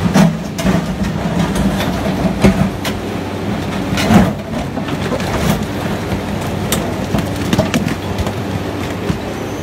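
MST M300LC excavator running under load as its steel bucket digs into and scoops a pile of broken rock, with stones scraping and knocking against the bucket. Sharp knocks come every second or so, the loudest near the start and about two and a half and four seconds in, over the steady engine hum.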